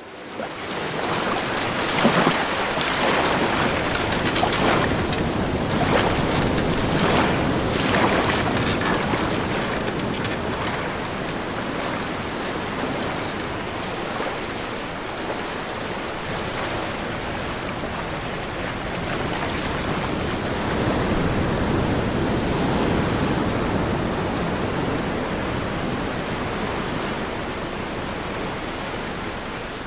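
Ocean surf breaking on a beach: a steady wash of water with several louder wave crashes in the first eight seconds or so.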